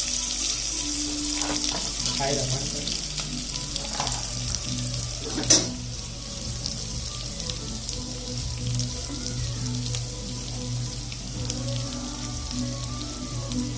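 Kitchen noise: a steady hiss, strongest at the start and easing off, with a single sharp knock about five and a half seconds in.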